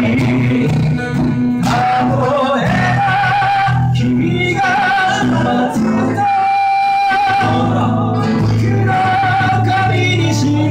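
A man singing long, wavering held notes over two acoustic guitars being strummed.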